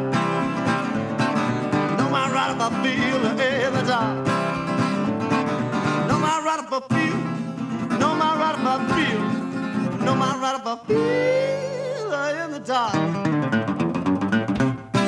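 Acoustic guitar playing a fingerpicked country-blues instrumental break with bent notes. There is a brief drop-out twice, and a long rising bend about eleven seconds in.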